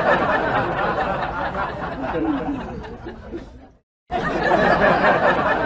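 Many people laughing and chattering at once, a dense crowd sound that drops out briefly about four seconds in and then resumes.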